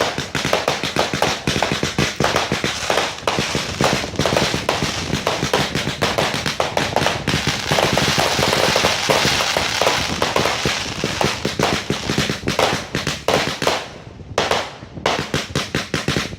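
Fireworks display going off: rapid, continuous bangs and crackling, densest in the middle of the barrage, with a brief lull near the end before a fresh run of quick bangs.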